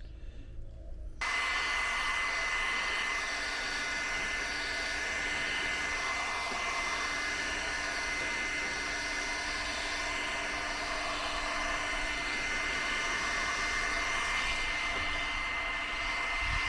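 Heat gun switched on about a second in and then blowing steadily, a constant fan rush with a thin whistle over it, shrinking heat-shrink tubing over soldered wire joints.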